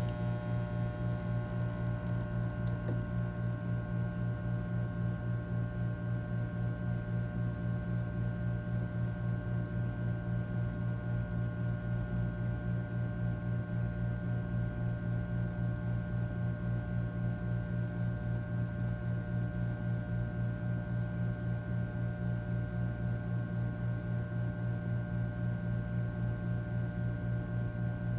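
Breville Bambino Plus espresso machine giving off a steady low buzzing hum after a shot has been pulled, with a regular pulse in its level.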